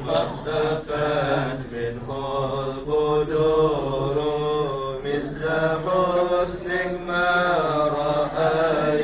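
A group of men chanting a zikir in praise of the Prophet Muhammad in unison, in long melodic phrases with held notes and short breaths between lines.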